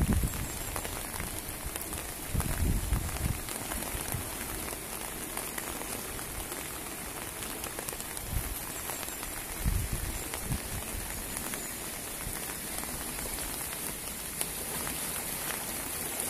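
The River Wye in full spate: fast, swirling floodwater rushing past a bridge pier, a steady hiss of moving water. There are a few brief low rumbles near the start and about ten seconds in.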